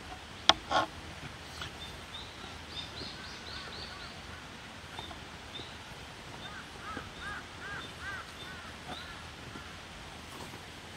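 Two sharp clicks about half a second in, then a run of short, evenly spaced chirping calls, high-pitched at first and lower in the second half.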